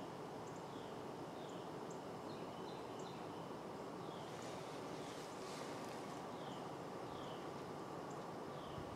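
Quiet pine-woods ambience: a steady low hiss, with a bird repeating short downward-slurred call notes every second or so, and a few faint high ticks.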